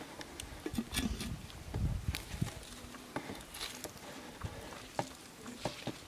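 Small clicks and light knocks from handling twigs at a small wood fire under a clay pot, with a clay lid set down on the pot. The knocks are heaviest in the first two seconds, and fainter clicks are scattered through the rest.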